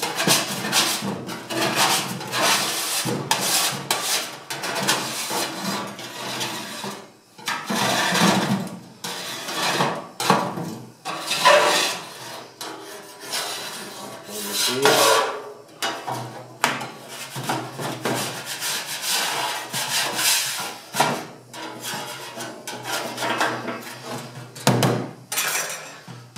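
Metal spatula scraping soot off the steel oven plate of an Ecofogão wood-burning stove, in many irregular strokes with short pauses.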